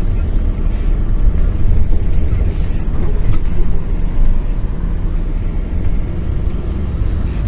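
Inside a sleeper coach bus underway: a steady low rumble of engine and road noise, with a faint engine hum.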